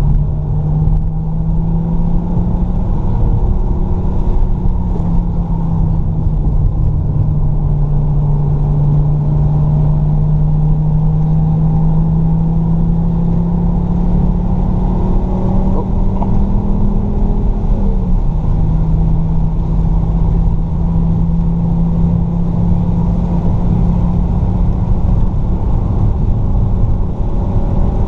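Fiat Stilo Abarth's 2.4-litre five-cylinder engine pulling hard on track. Its note climbs slowly through a long stretch in one gear, drops sharply on an upshift about eighteen seconds in, then climbs again. A steady rush of road noise sits underneath.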